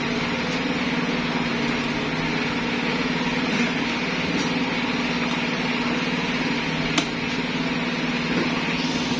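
Steady mechanical hum of a running motor, with one sharp knock about seven seconds in.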